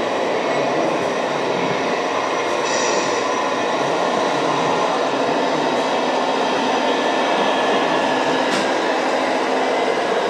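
Steady mechanical running noise of remote-controlled scale model trucks, an even whirring rumble from their drives.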